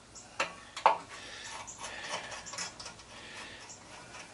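Screwdriver working the flathead screws inside an aluminum light fixture: two sharp metal clicks about half a second apart, then light scraping and ticking.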